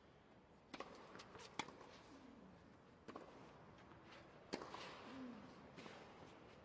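Faint tennis rally: sharp racquet-on-ball hits and bounces, about a second and a half apart, over a low hush.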